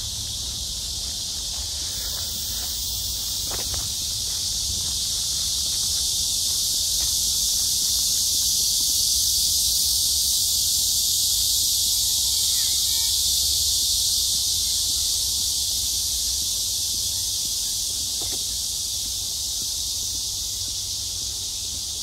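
Chorus of cicadas buzzing, a steady high-pitched hiss that swells to its loudest about halfway through and then fades again.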